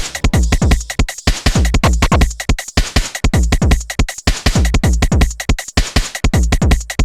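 Electronic music: a fast, busy beat of deep kick drums, each dropping in pitch as it decays, laced with sharp clicks and noisy hits.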